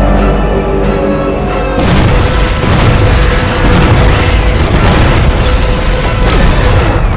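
Dramatic film score with a deep, heavy boom at the start over held chords; about two seconds in, a loud, dense rumbling crash of booms and impacts sets in and continues under the music.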